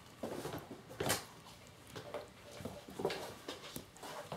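Kittens wrestling on a wooden floor: irregular scuffles and rustles of paws and bodies against the floor and a towel, the loudest about a second in.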